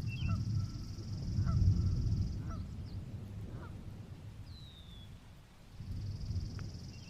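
Birds calling over a low rumble that swells and fades: short repeated calls, small chirps and one falling whistle about four and a half seconds in. A steady high buzz runs for the first couple of seconds and returns near the end.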